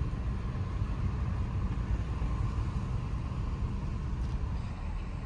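Steady low rumble of a motor vehicle, its engine running with no change in speed or load.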